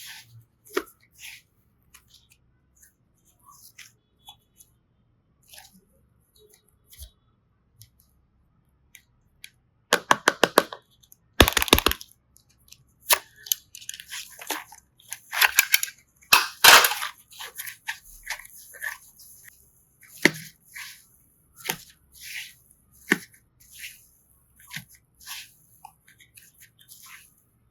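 Hands working slime and clay: scattered sticky clicks and crackles, with a rapid run of clicks about ten seconds in and louder crackling bursts around twelve and sixteen seconds.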